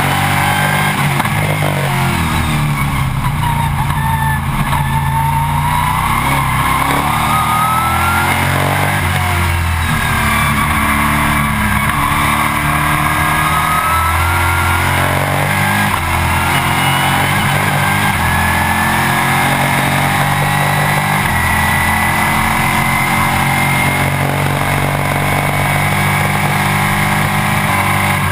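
Stock Car Brasil race car's V8 engine heard from inside the cockpit at racing speed, the revs climbing and dropping again and again with gear changes and braking.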